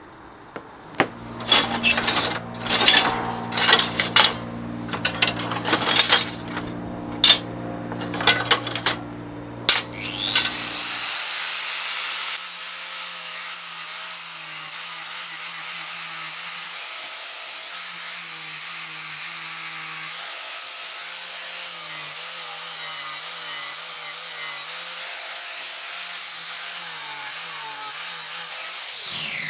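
Hand-held angle grinder with an abrasive disc running steadily against the rusty iron frame of an old kitchen scale, grinding off rust. It comes in about ten seconds in, after a run of irregular scraping and knocking strokes, and cuts off at the very end.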